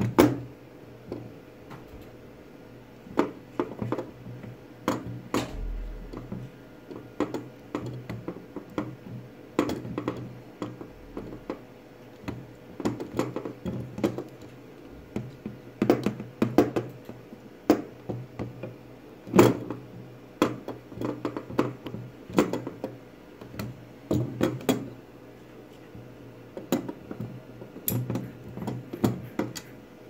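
Irregular clicks and clacks of a metal RJ45 crimping tool being opened, closed and handled with a Cat 6 cable, in scattered bursts with the loudest just after the start and about two-thirds of the way through.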